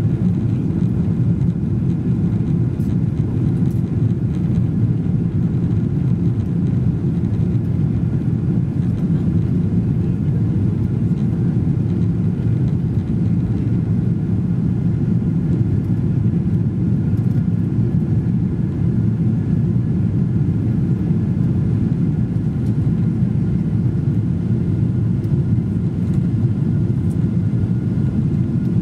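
Steady cabin noise inside a Boeing 777-200 climbing after takeoff: the low drone of the engines and rushing air, with a few faint steady tones above it.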